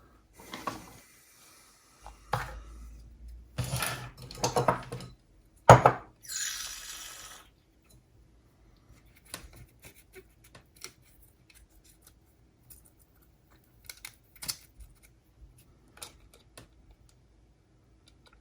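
Hands and small tools handling the plastic and metal parts of a Sony MZ-RH1 MiniDisc recorder being taken apart: scattered clicks and clatters, a sharp knock about six seconds in followed by a short rustle, then light ticks.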